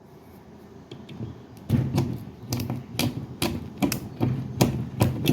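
Hand grease gun being pumped to force grease into the sprocket nose of a chainsaw bar: a run of sharp mechanical clicks, about two or three a second, starting under two seconds in.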